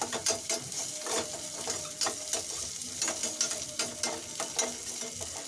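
Ginger-garlic paste and onions sizzling in hot oil in a small steel kadai, with a metal spatula scraping and clicking against the pan as it is stirred.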